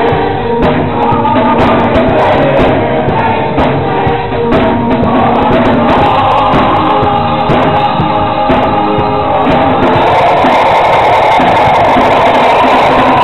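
Gospel choir singing, backed by a drum kit and keyboards, with regular drum hits under the sustained voices.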